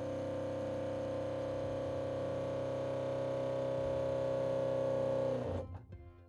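Boat's electric fresh-water pressure pump running with a steady pitched hum, building pressure back up in the accumulator tank, then stopping abruptly near the end.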